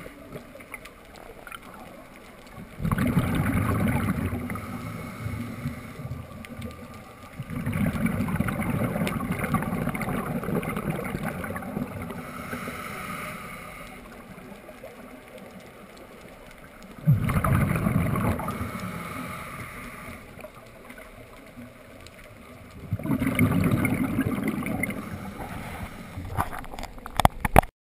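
Scuba diver breathing through a regulator underwater: four long rushes of exhaled bubbles a few seconds apart, with quieter stretches between them.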